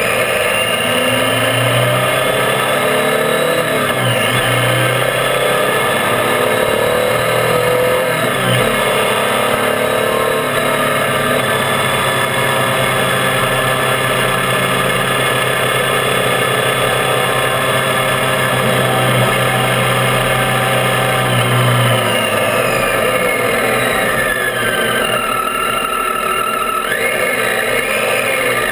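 Triumph Tiger 800's three-cylinder engine running while the bike rides, under a steady rush of wind and road noise. The engine note falls and rises again a few times, around four seconds in, around eight seconds in, and several times near the end.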